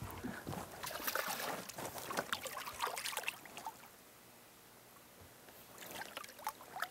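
Water splashing irregularly for about three and a half seconds as a hooked smallmouth bass is landed at the side of the boat. Then it goes quieter, with a few more splashes and knocks near the end.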